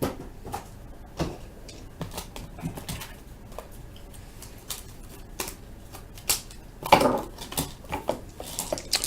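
Scattered light clicks and taps of trading cards and hard plastic card cases being handled on a table, a few sharper knocks coming in the last few seconds.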